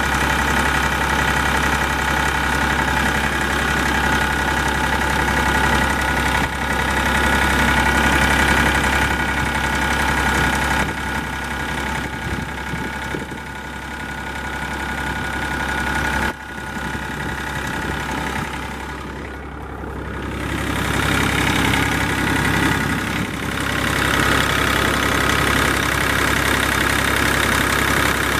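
Yanmar 3TNV84T three-cylinder turbocharged diesel idling steadily, heard close up in the engine bay. The sound drops noticeably quieter for several seconds in the middle, then comes back to full level.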